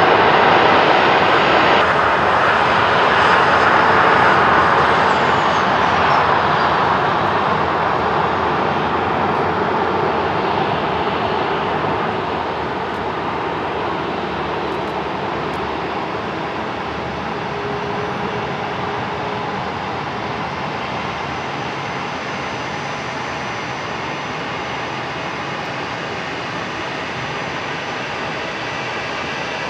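Boeing 737-400's CFM56-3 turbofan engines at taxi power: a steady jet hiss and rumble that slowly fades as the airliner moves away. A thin high whine falls in pitch about four seconds in.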